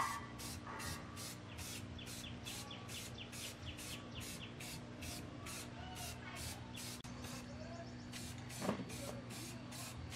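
Aerosol spray-paint can hissing, heard as a regular pulsing hiss about two or three times a second, over a steady low hum.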